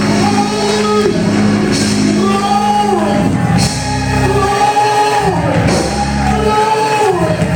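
Live praise-and-worship music: voices singing a sustained melody over a band with bass and steady accompaniment, echoing in a large hall.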